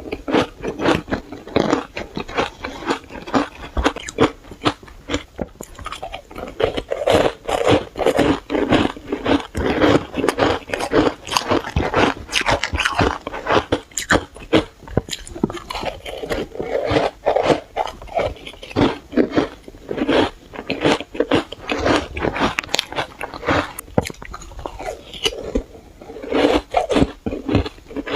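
Close-up biting and chewing of powdery shaved ice: rapid, continuous crunching as mouthfuls of frozen shavings are crushed between the teeth.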